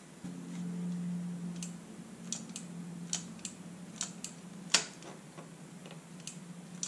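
Scattered light clicks and taps from hands working metal parts at the motorcycle's handlebar and master-cylinder clamp, irregular and about one or two a second, the sharpest one near the middle. A steady low hum comes in just after the start, strongest for the first couple of seconds and then fainter.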